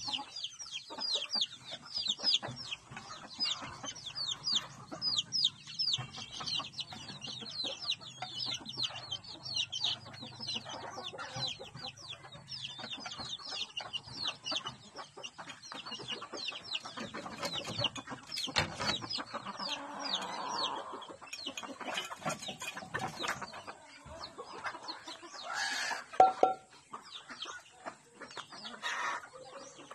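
Young chickens peeping in a rapid stream of high, quick, falling chirps, mixed with clucking. The chirping is dense for about the first twelve seconds, then thins out, and there is a louder short call a few seconds before the end.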